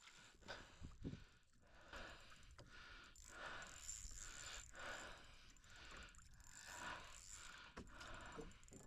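Near silence with faint scattered clicks and soft scrapes.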